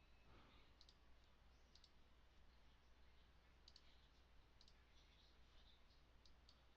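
Faint computer mouse clicks, about seven of them, several in quick pairs like double-clicks, over a steady low hum in near silence.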